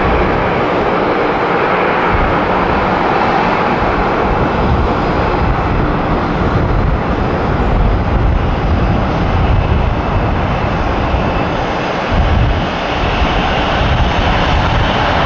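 Jet engine noise from a Boeing 737-800 rolling along the runway: a loud, steady rushing sound with no distinct tones.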